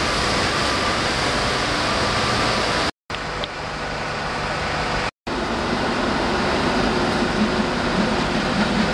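Passenger river boat under way: a steady rushing drone of engine, water and wind. It cuts out completely for an instant twice, about three and five seconds in.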